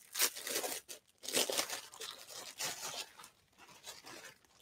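Thin clear plastic poly bag crinkling and rustling in irregular bursts as it is handled and leggings are pulled out of it.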